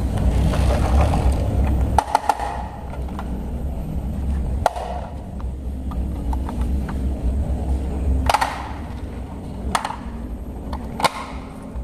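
A plastic toy garbage truck being handled, with about six sharp hard clicks and knocks of its plastic parts over a low steady rumble.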